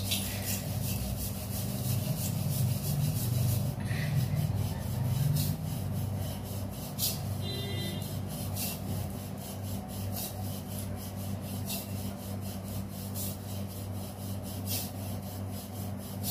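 A hand scrubbing a metal utensil with damp Pitambari cleaning powder: a continuous scratchy rubbing with many small irregular ticks as the gritty paste is worked over the metal to polish it.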